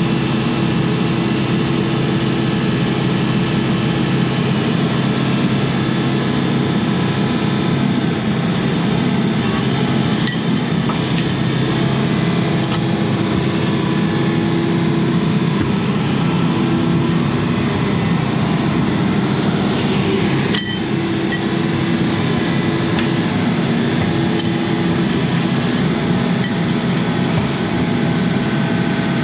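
Case CX80C mini excavator's diesel engine running steadily under the operator, with a few short, sharp metallic clinks in small clusters, the loudest about two-thirds of the way through.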